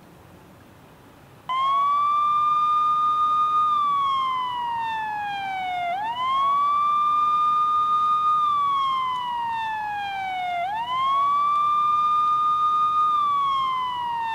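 Police car siren in a slow wail, starting about a second and a half in: each cycle sweeps up quickly, holds high, then slides slowly down, three cycles in all.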